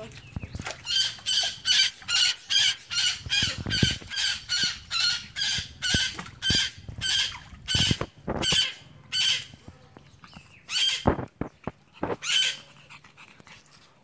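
Asian small-clawed otters giving a rapid series of short, high-pitched chirping squeaks, about three a second, for most of the first nine seconds, then a few scattered calls near the end.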